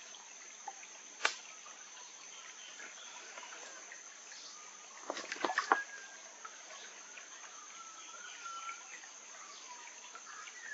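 Sticks clicking and knocking against stream-bed stones: a single sharp click about a second in and a short cluster of knocks around the middle, over a steady high insect drone.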